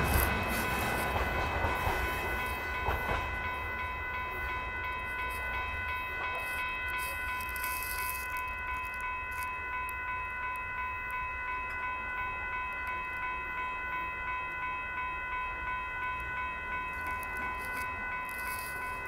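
Railroad grade-crossing warning bell ringing in a steady, even rhythm. In the first few seconds the rumble and rattle of the train's last gravel hopper car moving off over the rails fades away beneath it.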